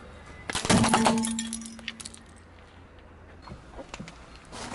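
A car tyre crushing a brittle object on asphalt: a loud burst of cracking and snapping about half a second in, lasting about a second and a half, with a brief ringing note fading out. A second crunch starts at the very end.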